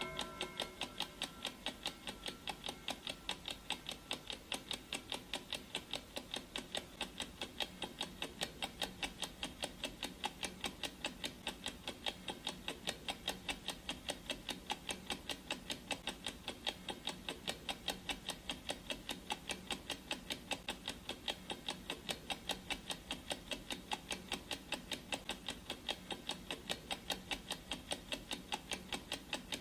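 Clock ticking sound effect of a countdown timer: a steady, even run of ticks, a few a second. The last of a gong's ring fades out in the first second.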